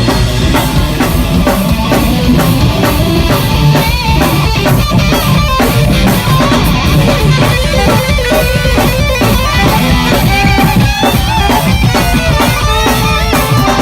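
Live rock band playing an instrumental section with no vocals: a drum kit keeping a steady driving beat under electric guitar and bass, loud throughout.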